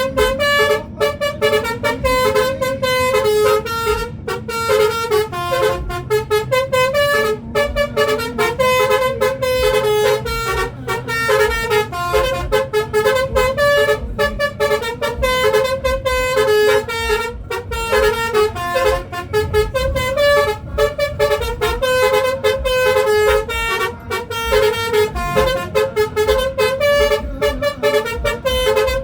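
Telolet musical vehicle horn playing a lively dance tune: a quick, unbroken run of short pitched horn notes stepping up and down.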